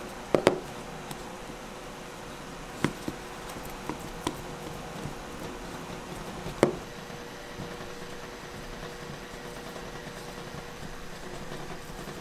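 Plastic spatula tapping and scraping against a plastic mixing bowl while pressing bean paste: scattered sharp taps, the loudest a quick pair near the start and one about halfway through, over a faint steady hum.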